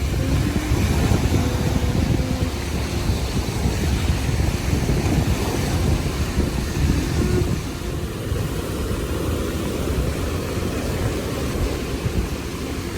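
Wind buffeting the microphone in a loud, steady low rumble, with the sea's surf washing behind it.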